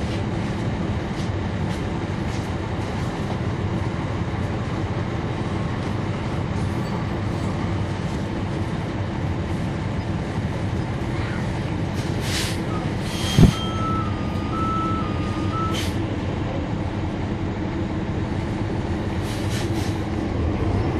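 On-board sound of a 2011 NABI 40-SFW transit bus, its Cummins ISL9 inline-six diesel running steadily with a low drone. About thirteen seconds in there is one sharp knock, the loudest thing here, with a few short hisses around it and again near the end.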